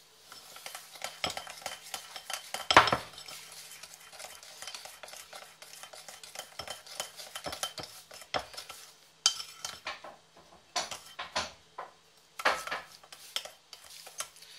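A metal teaspoon stirring a thin cornflour-and-sugar paste in a ceramic bowl, scraping and clinking irregularly against the bowl, with a louder knock about three seconds in and several sharper clinks in the second half.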